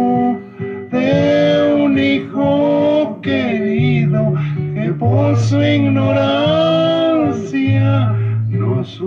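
A man singing a slow Mexican ranchera in long held, wavering notes, over guitar accompaniment with a steady bass note beneath that changes every second or two.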